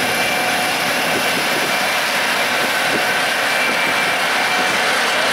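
Heavy farm machinery running steadily in a corn harvest, a continuous engine and machine noise with a faint steady whine over it.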